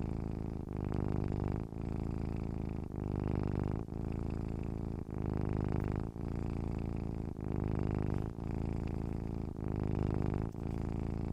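Domestic cat purring steadily, a low buzzing rumble with a brief dip about once a second as the cat changes between breathing in and out.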